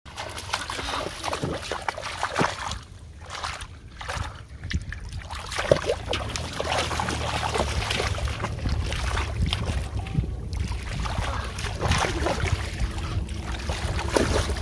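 Shallow water sloshing and splashing as someone wades through a flooded paddy, pushing a metal pot through the water and working his hands in it, with many short irregular splashes.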